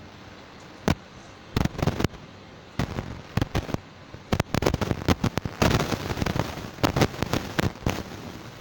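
Irregular sharp bangs and crackles: a few scattered ones in the first half, then coming thick and fast from about halfway through.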